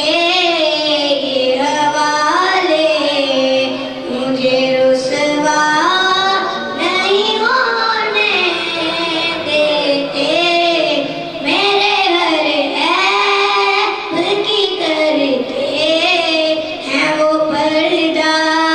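A boy singing an Urdu naat into a microphone: long, drawn-out melodic phrases whose pitch glides up and down, with short breaks for breath.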